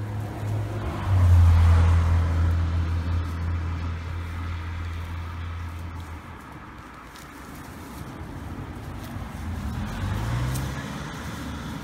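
A motor vehicle engine running close by: a steady low hum, loudest in the first half, that fades out about six seconds in. Near the end a shorter engine note rises briefly in pitch.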